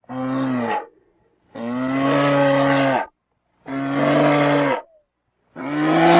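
Himalayan brown bear calling: a series of low, drawn-out calls at a steady pitch, each lasting about one to one and a half seconds, with silent gaps between them. Three calls are complete and a fourth starts near the end.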